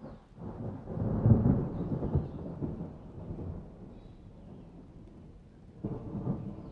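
A low, rolling, thunder-like rumble that swells about a second in, fades over the next few seconds, and starts again near the end.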